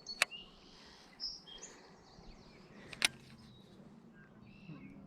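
Small birds chirping and calling, with two sharp clicks, one just after the start and one about three seconds in.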